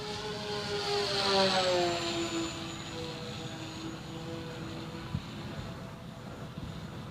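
Electric motors and propellers of a ParkZone Mosquito RC plane whining as it flies past. The whine swells to its loudest about a second and a half in and drops in pitch as the plane passes, then carries on as a steadier, fainter drone, with wind rumbling on the microphone underneath.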